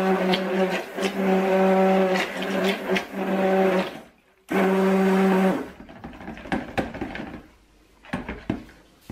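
Stick blender running in a plastic jug of cold process soap batter, a steady motor hum in short pulses, switched off about four seconds in and run once more for about a second. After that, a few light knocks as the blender shaft is stirred through the batter.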